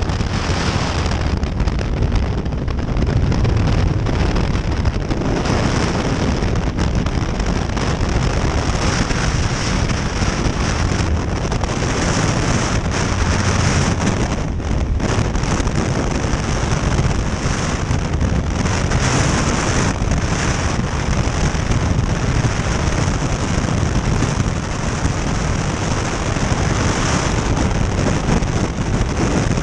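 Freefall airflow rushing over the camera's microphone: a loud, steady wind noise that keeps up without a break.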